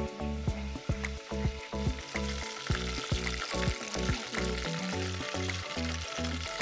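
Background music with a steady beat and bass, with the sizzle of lumpia (spring rolls) deep-frying in oil in a stainless steel pot coming up about halfway through.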